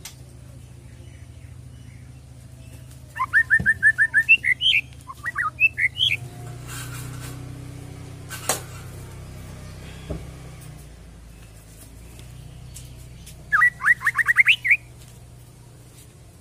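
White-rumped shama calling: a quick run of rapid repeated chirps about three seconds in, then a few rising whistled notes, and another fast chirping run near the end.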